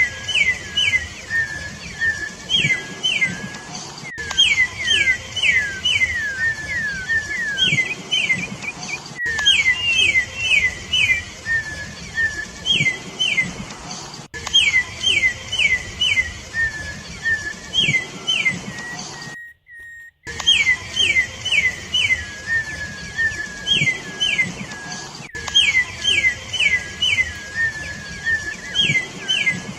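Campo troupial (corrupião) song: loud, clear whistled notes, each sliding downward, given in quick runs of three to five and repeated over and over. The song cuts out completely for under a second about two-thirds of the way through.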